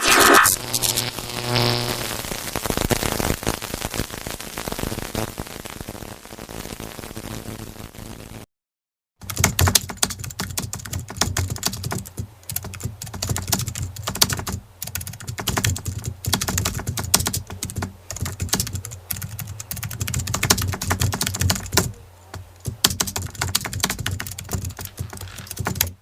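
Rapid, continuous typing on a computer keyboard, a dense run of key clicks that breaks off for under a second about eight and a half seconds in, then carries on. A short pitched sound opens it.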